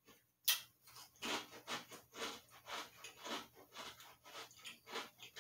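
A bite into a thin, crisp hot cocoa cookie, with one sharp crack about half a second in, followed by crunchy chewing at about two chews a second.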